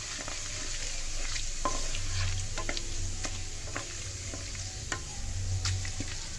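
Whole spices (cumin, cloves, cardamom, black pepper, bay leaves, cinnamon) sizzling and crackling in hot mustard oil in a metal kadhai, being tempered until they crackle. A spatula stirs and scrapes them round the pan, over a steady hiss with many scattered sharp pops.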